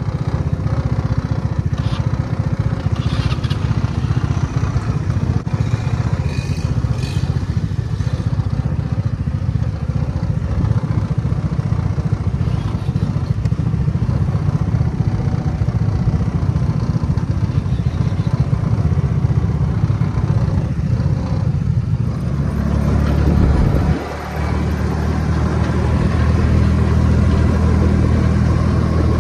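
Open dune buggy's engine running loud, with a rough rumble and rattle of the frame. About three quarters through, the engine note changes into a steady hum as the buggy gets under way, with a brief drop in level shortly after.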